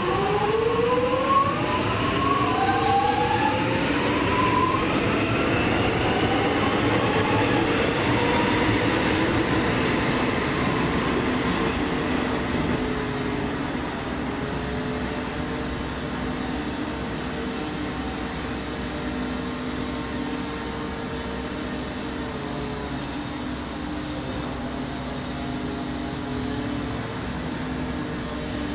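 X'trapolis electric multiple-unit train pulling away from the platform, its traction motors whining up in pitch over the first few seconds as it accelerates. Its running noise then fades as it draws off, leaving a steady hum.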